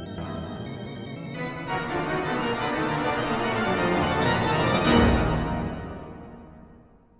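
Organ music: a held chord that thickens into a dense cluster about a second and a half in, swells to a loud peak about five seconds in, then fades away.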